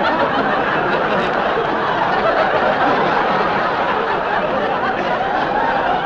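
Studio audience laughing in one long, unbroken laugh.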